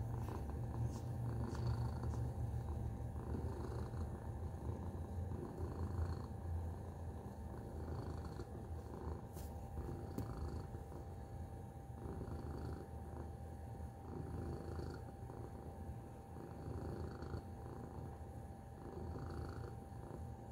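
Tabby cat purring: a low, steady rumble that swells and eases in a slow rhythm with its breathing.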